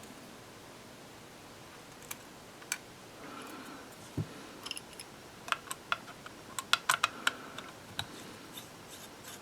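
Small sharp metallic clicks and taps of a precision screwdriver working the tiny screws of an iPhone 6s's battery-connector cover: a few isolated clicks, then a quick cluster of clicks in the second half.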